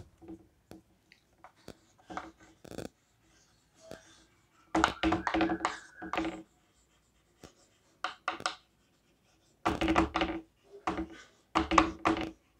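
Chalk tapping and scratching on a chalkboard as words are written, in several short bursts with pauses between.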